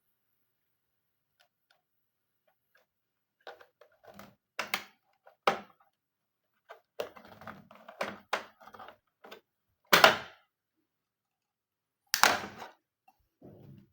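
A string of irregular clicks and knocks from hard parts of an all-in-one computer being handled during disassembly, starting a few seconds in, with two louder knocks near ten and twelve seconds in.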